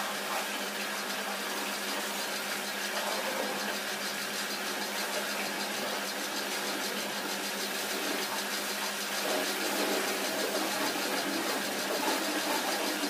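Car-wash pressure washer's motor and pump running, a steady even hum.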